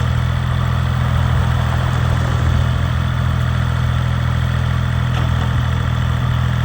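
Small diesel engine running at a steady speed with an even low hum, no revving.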